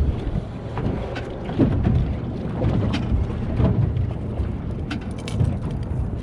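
Wind buffeting the microphone aboard a small fishing boat, a rough low rumble, with a few scattered knocks and clatters.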